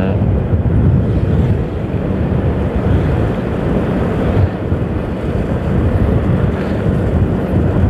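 Wind buffeting the microphone of a camera on a moving motorcycle: a loud, steady low rumble, with the motorcycle's engine running underneath.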